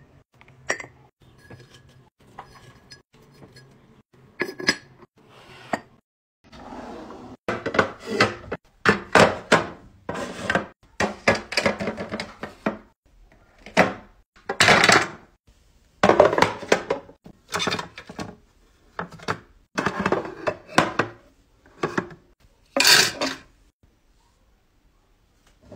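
Hands handling and setting down toiletries: a few light taps and clinks at first, then from about six seconds in a long, irregular run of plastic knocks and rattles as toothpaste tubes and other items are laid into clear plastic drawer organizers. It stops shortly before the end.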